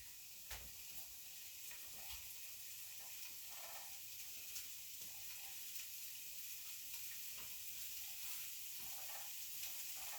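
Faint steady hiss with a few light clicks.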